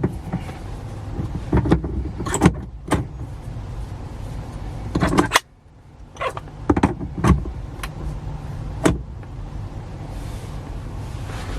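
Scattered clicks and knocks of a steering wheel being handled and fitted onto a quick-release hub, about nine in all, over a steady low hum.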